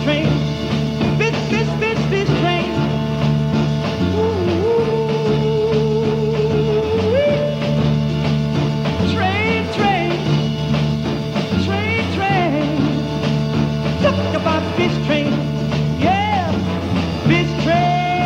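Live band playing an upbeat folk-gospel song: strummed acoustic guitar, upright bass and a hand-carried drum keep a steady, driving rhythm. Held, wavering vocal notes slide in and out above the band.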